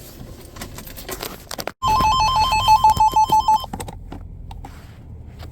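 A loud electronic ringing tone, a rapid warble between two pitches, lasting under two seconds and starting about two seconds in. Faint clicks come before and after it.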